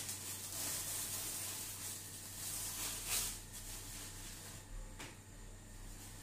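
Plastic cling film crinkling and rustling as it is peeled off a frozen ice-cream block and bunched up by hand, with a louder crackle about three seconds in.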